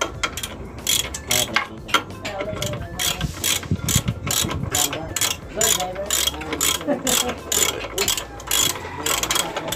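Hand ratchet wrench clicking in irregular runs of sharp clicks, about two or three a second, as the bolts of a truck's clutch cover are undone.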